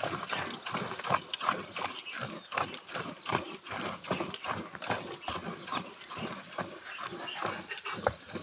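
Hand milking of a Holstein Friesian cow: the teats are squeezed in turn, and each squeeze squirts a jet of milk into a stainless steel bucket, about three squirts a second in an even rhythm.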